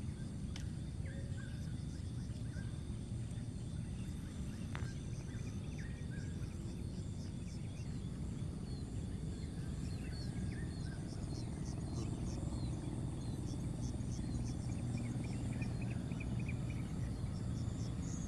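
Insects chirping in fast repeating pulses, with scattered short chirps, over a steady low rumble; a sharp click about half a second in and another near five seconds.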